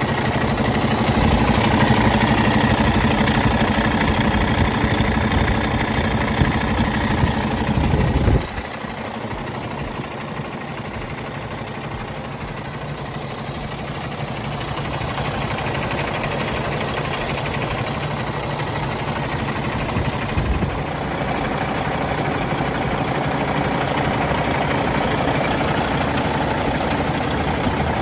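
Cummins X15 inline-six diesel in a Kenworth T680 idling steadily. About eight seconds in, the sound drops suddenly to a quieter level and carries on evenly.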